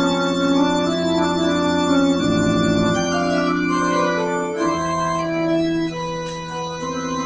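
Organ playing slow sustained chords over a held bass note, the upper notes moving every second or so: the postlude closing the service after the benediction.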